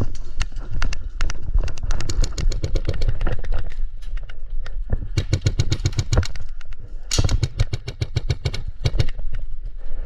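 Airsoft guns firing several rapid full-auto bursts of sharp clicks, over a steady low rumble.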